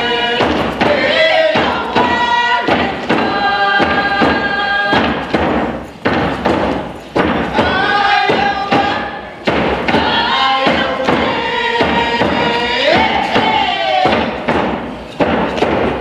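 A group singing a First Nations song in unison to a steady hand-drum beat.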